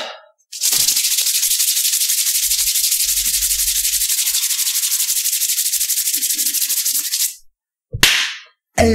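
Palms rubbed together fast and hard close to the microphone: a dry, scratchy hiss in quick even strokes that lasts about seven seconds and stops abruptly. A short breath follows, and music starts right at the end.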